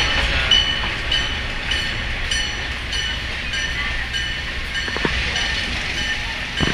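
PeruRail passenger train carriage running with a steady low rumble, and a short high-pitched squeak repeating about twice a second.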